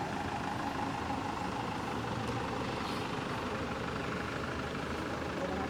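A vehicle engine running steadily at idle, an even low rumble without pauses.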